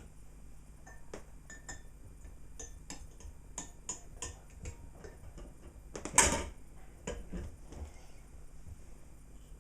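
Scattered light clicks and clinks, with one louder clatter about six seconds in: the glassware of a Cona vacuum coffee maker being handled.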